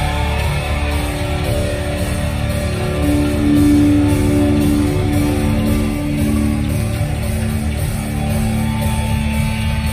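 Gothic doom-metal band playing live: distorted electric guitars hold long chords over bass and a drum kit.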